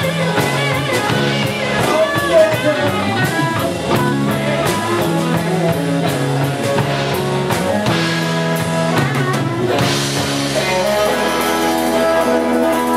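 Live rock band playing, with a drum kit and guitar. The drumming stops about ten seconds in and held chords ring on, as at the end of a song.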